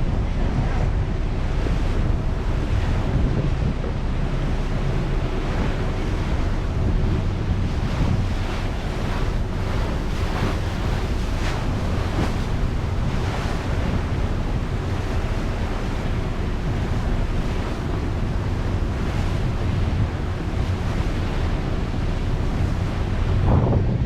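Passenger ferry under way: a steady low engine drone under water rushing past the hull and wind buffeting the microphone.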